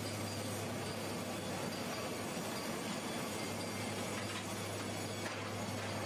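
Sawmill machinery running steadily: a constant low hum under an even rushing noise.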